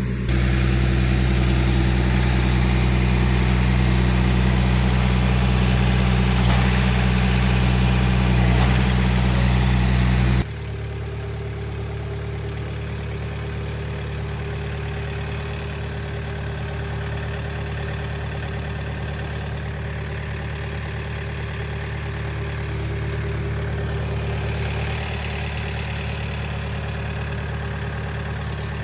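John Deere 4044M compact tractor's four-cylinder diesel engine running steadily. The sound drops suddenly in level about ten seconds in and continues, quieter, to the end.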